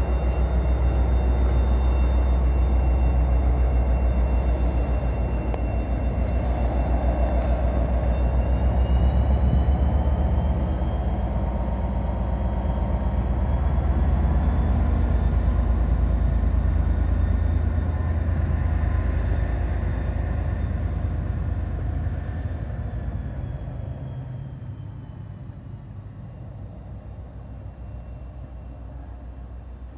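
Class 57 diesel locomotive 57604's turbocharged EMD two-stroke V12 engine working as it departs: a deep throb with a high whine that climbs in pitch about ten seconds in. The sound fades from a little after twenty seconds in as the locomotive draws away.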